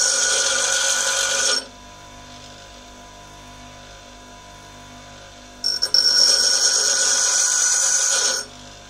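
Bench grinder wheel grinding a steel parting-off tool: a loud, high-pitched grinding hiss with a ringing edge that stops about a second and a half in, leaving the grinder motor running quietly, then a second pass from about six seconds in to near the end.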